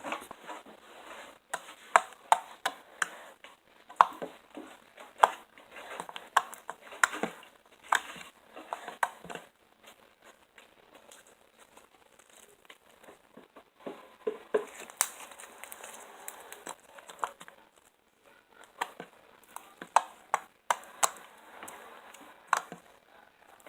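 Hands squishing, poking and stretching homemade clear slime for ASMR, making irregular sharp sticky clicks and crackles with short quieter pauses. The slime is still tacky and holds air bubbles.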